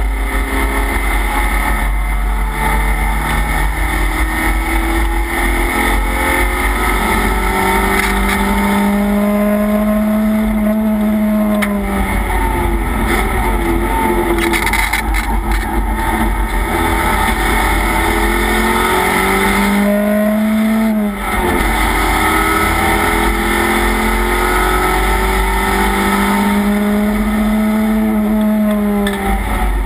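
Race car engine heard from inside the cockpit under hard driving, its pitch climbing on the throttle and dropping back several times. There is a brief sharp dip about two-thirds of the way through, with steady wind and road noise underneath.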